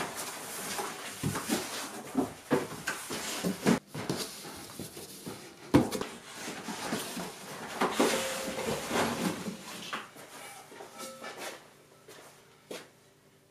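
Cardboard box being opened by hand: flaps folded back and packaging inside rustled and scraped, with scattered knocks and one sharp knock about halfway through, as an alloy wheel rim is lifted out. The handling stops a couple of seconds before the end.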